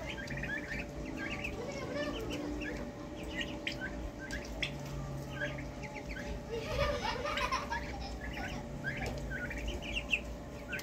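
A flock of Muscovy ducklings and young turkeys peeping while they feed: many short, high chirps overlapping in quick succession.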